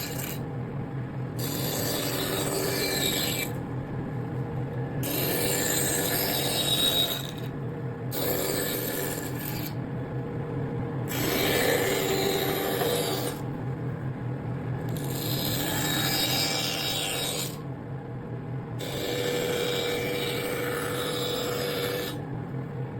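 A tool scraping and rasping against wood over a steady low hum, the sound changing in character every few seconds.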